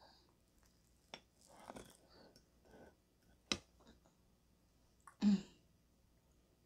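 Quiet eating sounds: a fork cutting and scraping through a slice of cheesecake on a plate, with sharp clinks about one and three and a half seconds in, then a short, louder mouth or throat noise about five seconds in.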